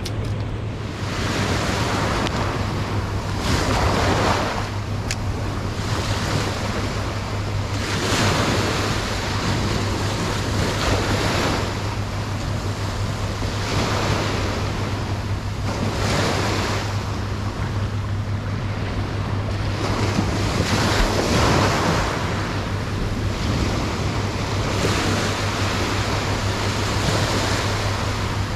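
Small ocean surf breaking and washing up a sandy beach, swelling and fading every few seconds with each wave, with wind buffeting the microphone.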